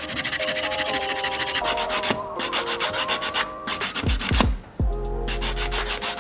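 Sandpaper rubbing quickly over a part of a die-cast model car, many short even strokes a second, breaking off briefly near the end before resuming. A tune plays underneath.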